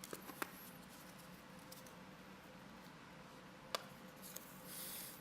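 Faint handling noises of trading cards and foil booster packs: a few light clicks, one about three-quarters of the way through, and a brief rustle near the end.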